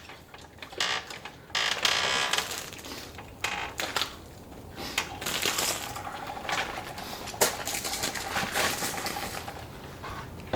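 Irregular metallic clicks and clattering of tools and parts being handled, with several sharper knocks among them.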